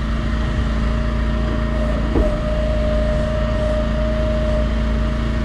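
Engine running steadily aboard a small fishing boat. A thin, steady whine comes in with a short knock about two seconds in and holds for a couple of seconds.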